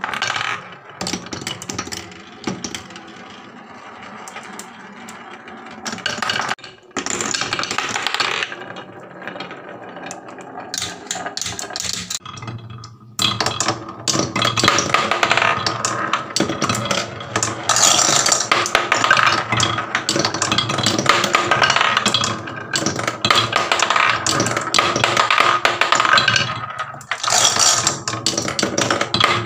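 Marbles rolling and clattering along a wooden marble run: a dense stream of clicks and rattles that grows louder and fuller about halfway through.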